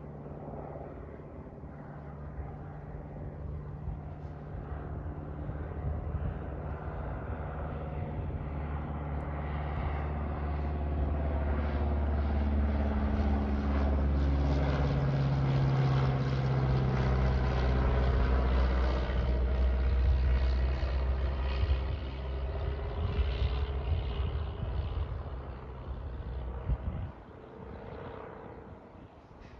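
Single-engine propeller plane flying low overhead: the engine-and-propeller drone grows louder, peaks about halfway through, drops slightly in pitch as it passes, then fades as the plane moves away.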